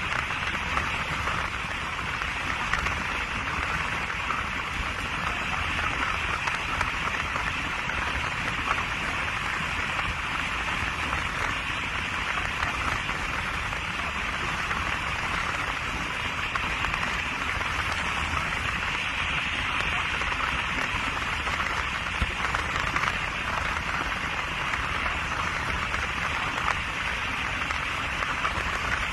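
Steady rushing hiss with a low rumble underneath, from a car driving through a thunderstorm.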